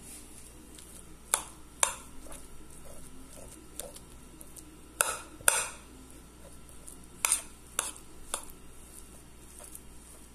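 A metal spoon stirring butter into hot mashed potatoes in a glass baking dish. Soft, mushy scraping is broken by a handful of sharp clinks of the spoon against the glass, the loudest pair about halfway through.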